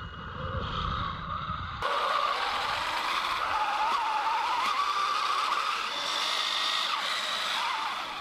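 Electric drive of a 3D-printed RC tank: 775 DC motors whining through 3D-printed helical gearboxes as the tracks churn through snow. The whine comes in loud about two seconds in and wavers up and down in pitch with the throttle.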